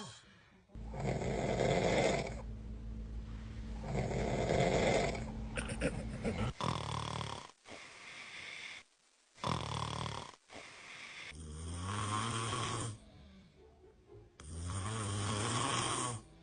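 A man snoring: about six long, rasping snores, each a second or two long, with short pauses between them.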